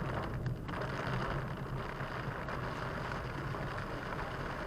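Steady noise inside a moving car in heavy rain: low road and engine hum with the hiss of rain and wet tyres.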